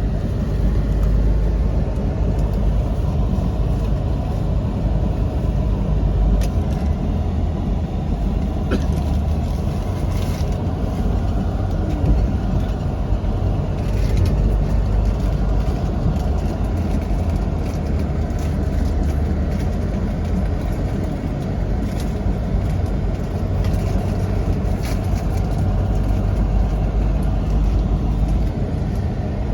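Tour jeep driving along, a steady low rumble of engine and road noise, with a few faint knocks and rattles now and then.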